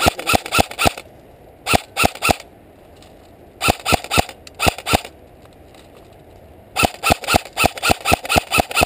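Airsoft electric AKS-74 replica firing strings of quick shots, about five a second: one string in the first second, three shots around two seconds in, another string around four seconds in, and a longer string from about seven seconds on.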